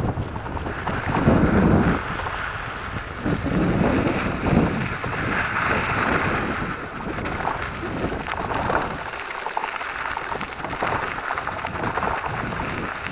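Wind buffeting the microphone of a camera on a moving electric mountain bike, in uneven gusts, with the tyres rolling over sand and gravel.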